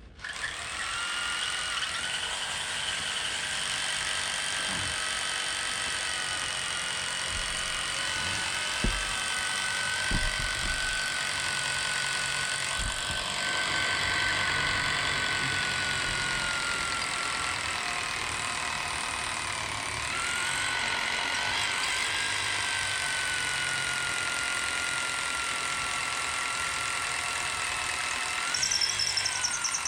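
A motor running steadily with a whining pitch that sags slightly and then steps back up about twenty seconds in.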